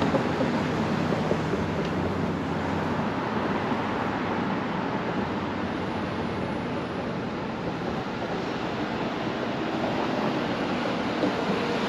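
Steady wash of road traffic on a bridge over the water, an even hiss that holds level throughout.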